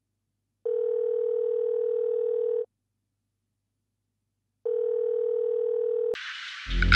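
Telephone ringback tone: a steady low beep sounding twice, each about two seconds long with a two-second gap. The second ring is cut short by a click as the call is picked up, followed by line hiss and a low hum.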